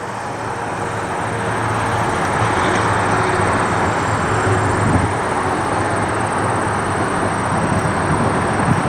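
Jet engines of a formation of aircraft passing low, a steady rushing noise that grows louder over the first few seconds and then holds.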